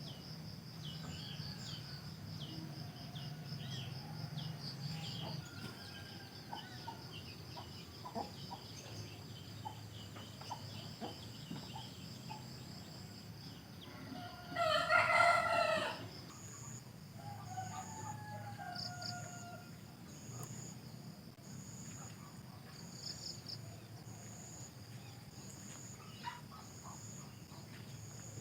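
Village ambience: a steady pulsing chirp of crickets throughout, with scattered bird chirps, and a rooster crowing once about halfway through, the loudest sound.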